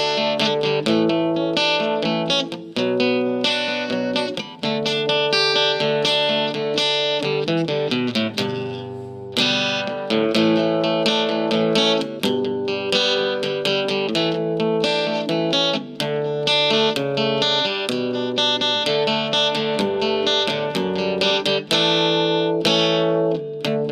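Ibanez acoustic-electric guitar playing an instrumental tune in quick plucked notes.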